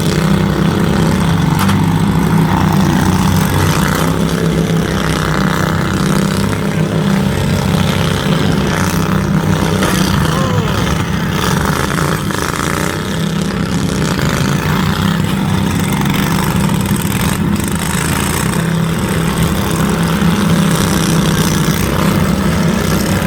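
Several small lawnmower engines running hard together, a loud steady drone whose pitch wavers up and down as the mowers rev.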